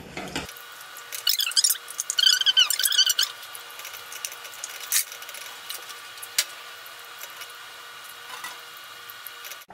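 Silicone spatula stirring a thick milk-and-cornstarch sauce in a stainless steel saucepan: squeaky scraping against the pan for about two seconds, then two sharp taps on the pan later on.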